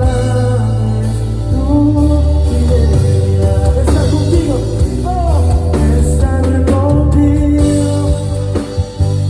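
Live band playing a worship song: electric guitar, bass and drum kit, with a sung melody over them.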